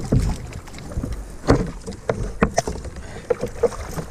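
Choppy water sloshing and slapping against the hull of a plastic sit-on-top fishing kayak, with irregular knocks and thumps on the boat.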